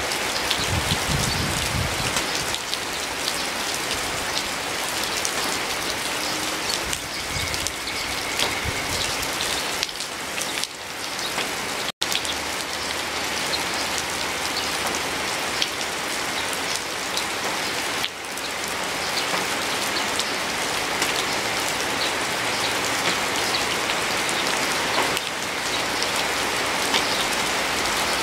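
Steady, heavy rain, an even rush with many individual drops ticking through it. The sound cuts out for an instant near the middle.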